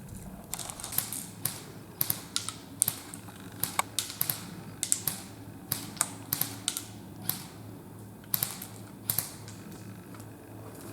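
Airsoft guns firing: an irregular run of sharp plastic clacks, single shots mixed with quick pairs and short bursts, that dies away near the end.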